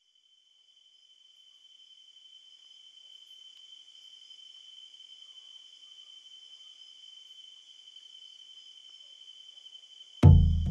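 Insects trilling steadily on one high pitch, fading in over the first two seconds. About ten seconds in, a loud low note with a sharp attack marks the start of the music.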